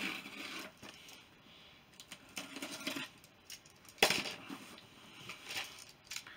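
Small box cutter scraping and slicing along the packing tape of a cardboard shipping box, with scattered clicks, scratches and rustles of cardboard and tape. A sharp knock about four seconds in is the loudest.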